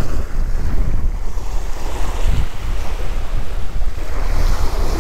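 Wind buffeting the microphone in a steady low rumble, over small waves washing onto a pebbly beach.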